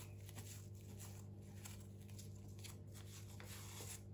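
Faint, irregular rustling of a cloth wiping the plastic brush bar of a Dyson V15 vacuum head, over a steady low hum.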